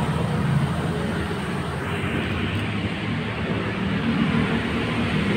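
Steady low mechanical rumble with a hiss, unbroken throughout.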